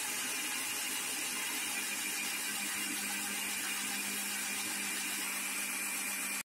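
Electric mixer grinder running steadily, its motor spinning the blades through kiwi, sugar and water in a stainless steel jar. It stops suddenly near the end.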